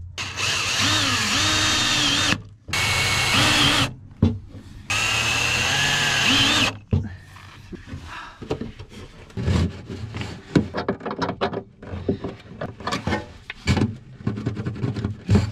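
Power drill running in three short bursts, its motor pitch bending up and down as it speeds and slows, then a string of irregular knocks and clicks of handling.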